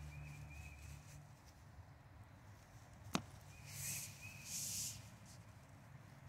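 A sheathed seax is set down on a rotten wooden log, giving one sharp knock about three seconds in, followed by two brief rustles.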